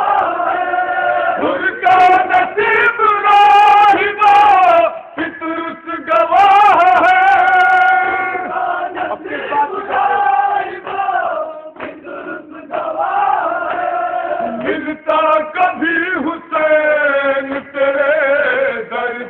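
Men's voices chanting a noha, a Shia mourning lament, together: long held, wavering notes in phrases, with short breaks between lines.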